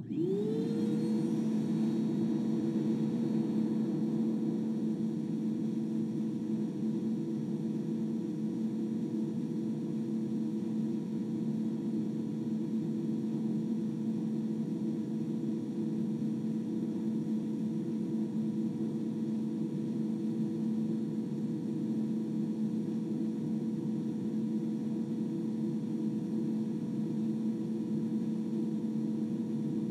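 Vacuum cleaner switched on: its motor whine rises over about the first second, then it runs at a steady pitch over a dense, low, even rush of noise. It is heard through a microphone inside a VOMO portable vocal booth.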